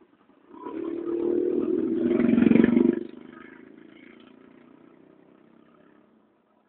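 A motor vehicle engine, growing louder to a peak about two and a half seconds in, then dropping off sharply and fading away.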